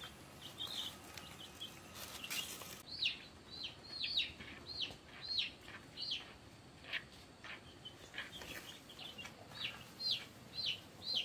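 Young chickens peeping over and over while held in the hand: short, high-pitched cheeps that slide downward, about one or two a second, starting about three seconds in.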